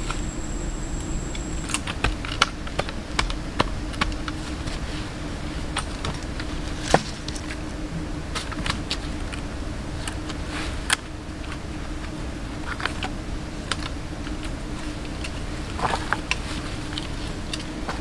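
Scattered irregular clicks and knocks of wooden poles and loose soil being handled and set down, over a steady low hum.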